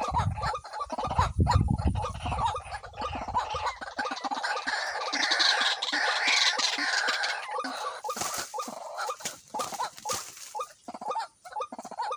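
White-breasted waterhen calling, a fast run of repeated notes, with a low rumble over the first few seconds.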